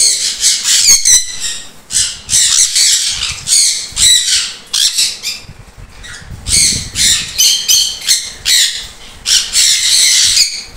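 Sun conures screeching: loud, harsh, high calls repeated in quick succession, with a short lull about halfway through.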